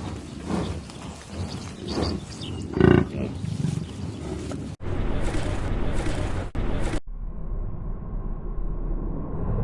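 Farm animal calls, several short ones with the loudest about three seconds in. The background changes abruptly about five and seven seconds in, as one recording cuts to another.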